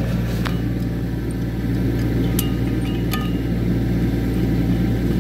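Kubota U25 mini excavator's diesel engine running steadily, with a few sharp metal clinks as wrenches go onto the helical pier's coupling bolt and nut.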